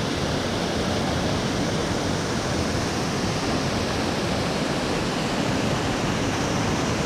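Partly frozen waterfall rushing with a loud, steady roar of falling water.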